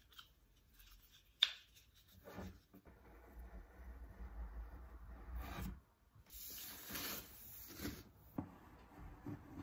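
A utility knife blade scraping old dried caulk off the painted edge of an MDF cabinet panel in several strokes, the longest near the end. A sharp click about one and a half seconds in.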